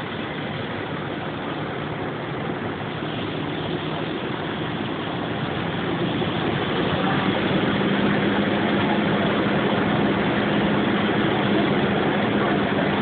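Fire engine's pump engine running steadily under the rush of a hose stream spraying water, the hum rising in pitch and getting louder about halfway through.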